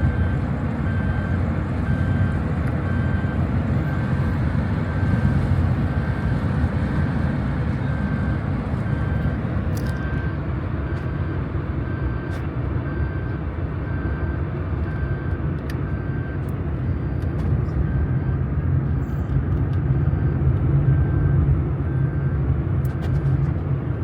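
Steady low rumble of a motor vehicle on the move, with a faint electronic beep repeating evenly about every three-quarters of a second.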